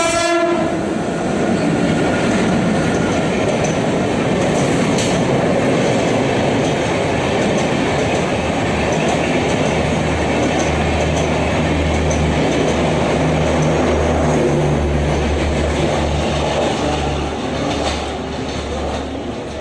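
Passenger train hauled by a WAP-5 electric locomotive running through a station at speed without stopping. The locomotive's twin-tone horn cuts off just after the start, followed by the steady rush and clatter of the coaches' wheels on the rails. A low hum joins about halfway, and the noise eases near the end.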